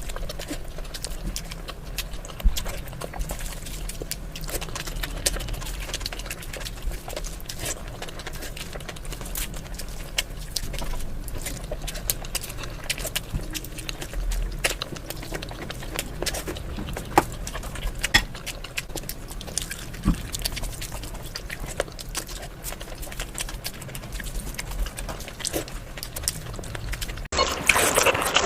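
Close-miked eating sounds: continuous chewing with many small wet clicks and mouth smacks. About a second before the end it cuts abruptly to a louder, hissier sound.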